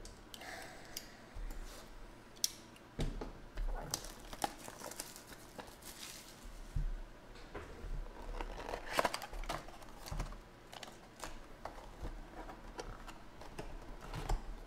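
Hands opening a Bowman Chrome box of baseball cards: wrapping crinkling and tearing, with scattered sharp clicks and taps of cardboard and packs being handled.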